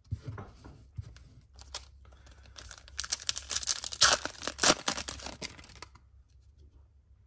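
A baseball card pack's wrapper being torn open by hand. A dense, crackly run of tearing and crinkling comes between about two and a half and six seconds in, after a few light handling clicks.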